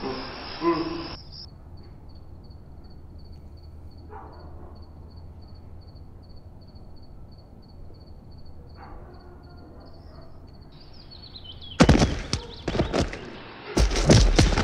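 An insect, cricket-like, chirping in a high, even, rapid pulse over a low hum. About twelve seconds in, a burst of loud knocks and thumps takes over.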